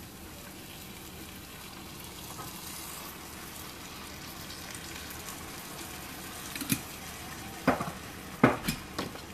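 Steady sizzle of green peppers and onions frying in a pan as jarred tomato sauce is poured over them. In the last few seconds come several sharp knocks and clicks, the loudest about eight and a half seconds in.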